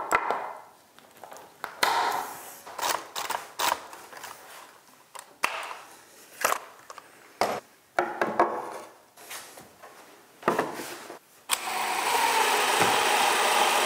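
A cordless drill runs steadily for about three seconds near the end, driving a screw into the wooden frame rails. Before that come scattered clicks and knocks as a clamp and wood trim pieces are handled.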